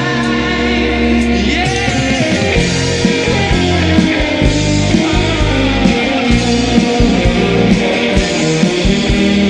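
Studio-recorded rock song playing: guitar, bass guitar and a drum kit keeping a steady beat.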